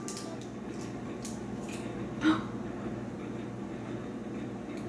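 Wire whisk stirring batter in a mixing bowl: scattered light clicks and scrapes against the bowl, with one short louder sound a little over two seconds in.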